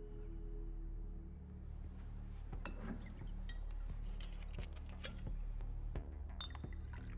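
Cut-crystal decanter and glassware clinking as the decanter's glass stopper is worked out: a run of sharp glassy clinks starting about two and a half seconds in, over a low steady drone.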